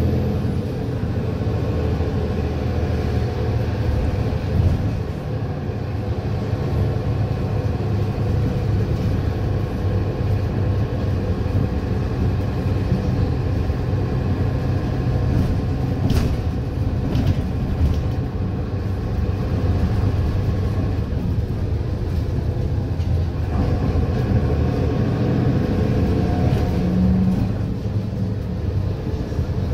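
Mercedes-Benz Citaro bus running on the road, heard from inside the saloon: a steady diesel engine and ZF Ecomat automatic driveline rumble with road noise. A few short rattles come about halfway through.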